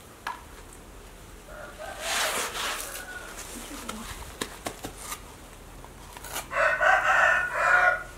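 A rooster crowing loudly about two-thirds of the way in: one long, segmented call. Earlier comes rustling with a few sharp clicks, as a plastic packet is handled.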